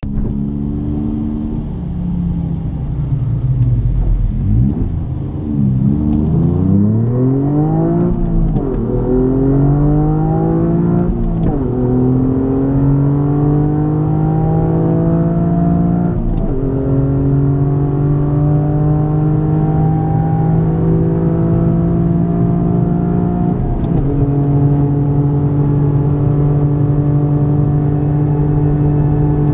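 Toyota GR Yaris 1.6-litre turbocharged three-cylinder with an aftermarket Aulitzky exhaust, accelerating at full throttle, heard inside the cabin. The engine note climbs in pitch and drops back at each of several upshifts, the climbs getting slower and longer in the higher gears.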